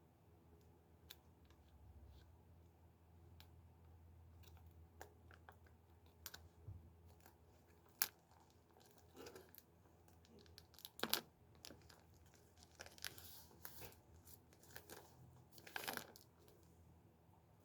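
Tight plastic packaging, which the person thinks is air-sealed, crinkling and tearing in short, scattered bursts as it is handled and pulled open. There is a sharp snap about eight seconds in, and louder crackles about halfway through and near the end.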